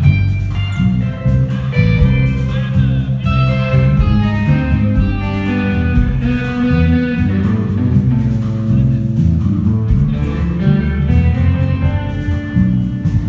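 Rock band playing live, guitar-led with a full low end beneath, loud and continuous.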